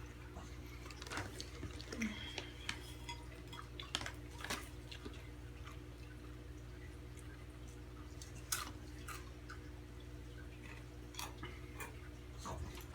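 Steady low electrical hum with a few faint, scattered clicks and taps, about one every second or two.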